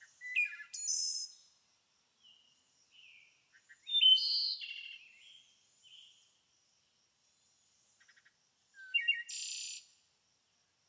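A songbird chirping and trilling in three short bouts, a few seconds apart.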